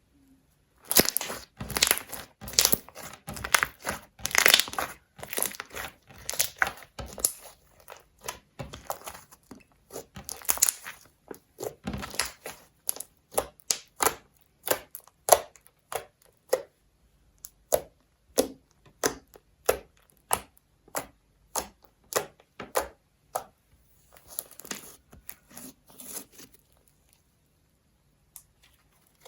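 Slime being kneaded and stretched by hand, giving a run of sticky crackles and pops. They are densest and loudest in the first few seconds, come in sparser clusters after that, and stop shortly before the end.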